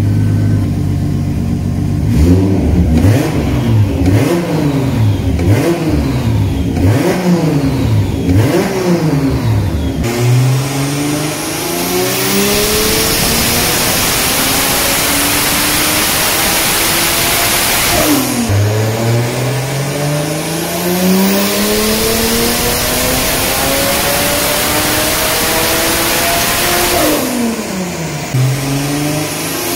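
Nissan Cefiro's turbocharged 2JZ-GTE VVTi straight-six on a chassis dyno. It idles, then is blipped quickly about six times. It then makes two long full-throttle pulls under boost, each climbing steadily in pitch with a loud rushing noise and falling off sharply as the throttle closes. A third pull begins near the end.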